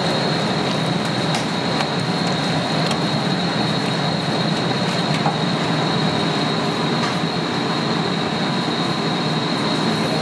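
Steady loud running noise of commercial kitchen equipment: an even rush with a constant high whine, and a few faint clicks over it.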